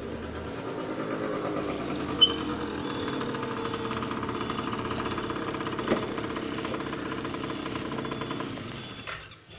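Domestic cat purring steadily right at the microphone, a continuous vibrating rumble that fades out near the end; a contented purr while the cat lies on a lap being stroked.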